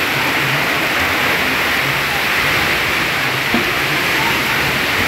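Heavy rain pouring down steadily in a downpour, with runoff streaming off the edge of a corrugated tin roof.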